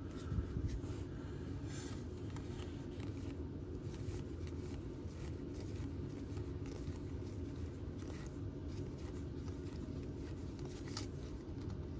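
Baseball trading cards handled and flipped through by hand: faint, scattered slides and flicks of card stock over a steady low background hum.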